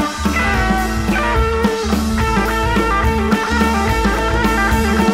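Rock music with guitar, bass and drums, played back from a tape on an Akai X-201D reel-to-reel deck.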